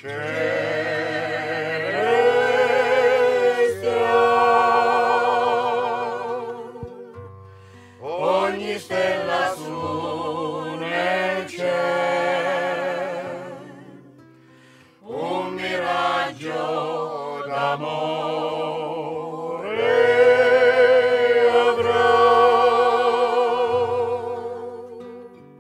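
Tabarchino folk serenade sung by a group of voices with vibrato over instrumental accompaniment. It comes in three long phrases, each dying away briefly before the next begins.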